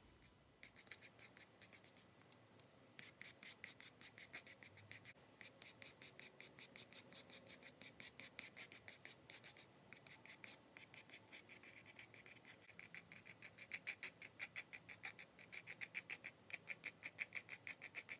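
Bristles of an old, damp toothbrush brushed lightly over watercolour paper to paint fur texture: quick, light scratchy strokes, about four or five a second, with a short pause about two seconds in.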